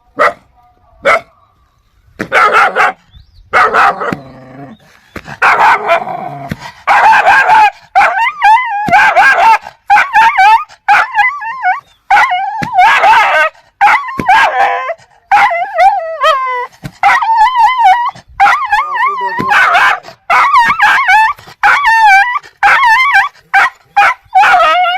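Dogs barking aggressively, with higher yelps and whining mixed in. A few single barks come first, then about two seconds in the barking becomes loud and almost continuous, one call right after another.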